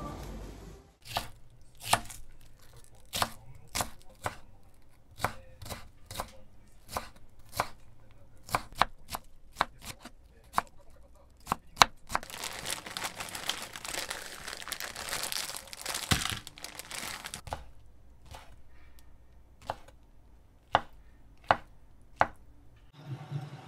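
Kitchen knife chopping on a cutting board in irregular strokes, roughly one or two a second, with a few seconds of steady hiss midway.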